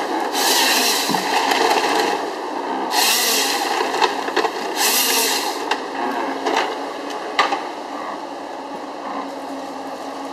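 Gremo 1050H harvester head cross-cutting a log with its chain saw: three cuts of about a second each, over the steady drone of the machine's engine and hydraulics. A couple of sharp knocks follow in the second half as the head works the log, then only the engine drone remains.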